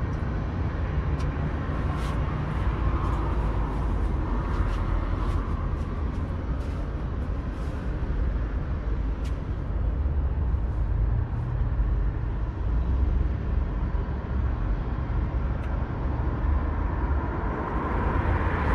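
Steady low rumble of an idling vehicle engine, with light scattered clicks in the first half.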